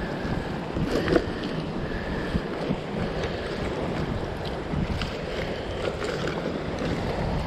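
Wind rumbling on the microphone. Over it come rustling and a few small clicks from a backpack being rummaged through by gloved hands, the sharpest about a second in.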